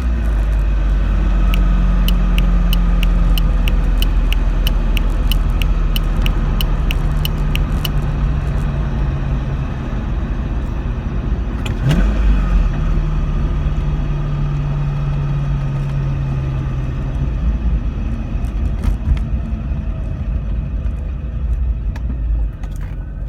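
Corvette C5 V8 running with a steady low drone, and a regular ticking of about two to three clicks a second for the first several seconds. It is the noise the car has made since a pair of Hinson motor mounts was fitted, and its cause is unknown to the owner.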